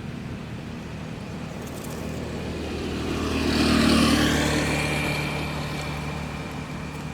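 A motor vehicle driving past: its engine and tyre noise build up, are loudest about four seconds in, then fade away.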